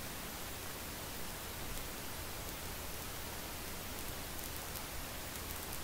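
Steady, even hiss of a light single-engine plane's cabin noise at full power on the takeoff roll, with no distinct engine tone.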